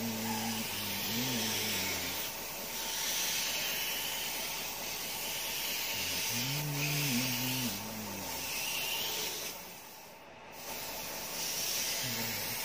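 Airbrush spraying paint with compressed air: a high hiss that starts and stops in several bursts as the trigger is worked, with a short break about ten seconds in. A low pitched sound rises and falls twice beneath it, near the start and about halfway.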